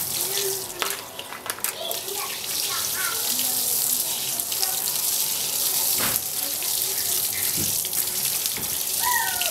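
Water from a garden hose spraying onto an air-conditioner's mesh filter screens and splashing on the wet ground: a steady hiss.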